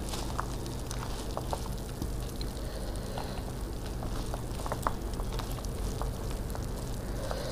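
Puffed rice being mixed by hand with pea curry on a steel plate: a soft crackling rustle with scattered light clicks, over a steady low hum.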